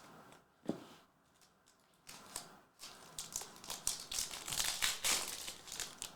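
Foil trading-card pack wrapper being torn open and crinkled, with a couple of sharp clicks at the start and a dense crackle of rustling from about two seconds in.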